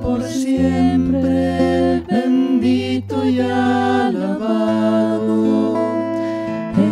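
Devotional hymn sung in Spanish in praise of the Blessed Sacrament, slow with long held notes, over instrumental accompaniment holding steady bass notes.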